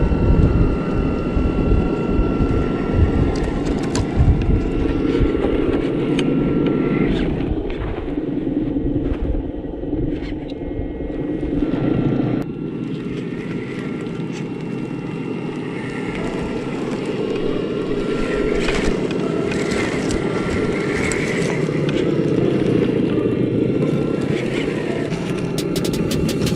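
Traxxas TRX-4 RC crawler's stock brushed electric motor and geared drivetrain whirring as it drives over rough trail, its tyres crunching and scraping over dirt and stones.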